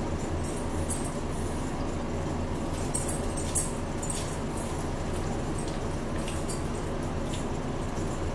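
Close-up eating sounds: crunching of potato chips and chewing, heard as short scattered crackles and clicks, over a steady low hum.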